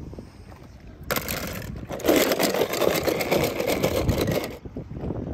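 Die-cast toy cars rattling and scraping together in a plastic tub, starting about a second in and stopping sharply near the end, loudest in the middle, over a low wind rumble.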